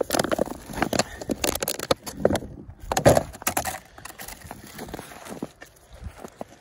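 Clear plastic clamshell food container crackling and clicking as it is handled, opened and emptied. The sound is loudest in the first few seconds, then drops to quieter scattered rustles and clicks.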